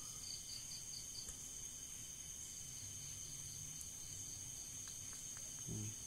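Crickets trilling steadily in the background, a high thin continuous tone, with a short run of quick pulsed chirps about half a second in.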